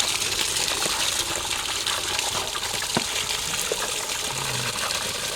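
Water running in a steady gush, with a few faint ticks and knocks.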